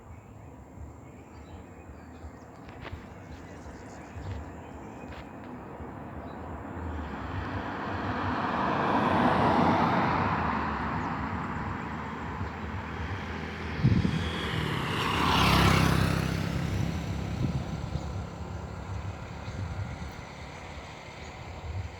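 Rushing sound of vehicles passing, swelling and fading twice: a first pass peaks about ten seconds in, and a louder, sharper one comes about sixteen seconds in, with a knock just before it.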